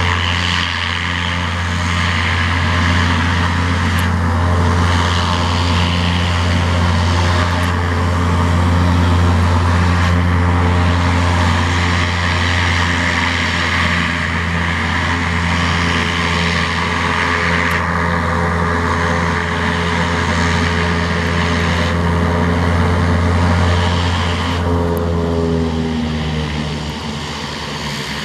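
Saab 340 turboprop's two engines running, a steady low propeller drone with a broad turbine hiss above it. Near the end the tones slide lower and the sound eases off slightly.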